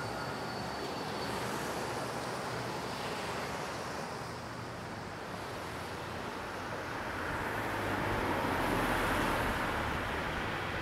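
Steady wash of city street traffic, swelling louder between about seven and ten seconds in.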